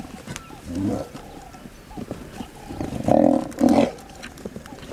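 Young lions growling as they attack a hippopotamus, with three loud growls: one about a second in and two close together just after three seconds in.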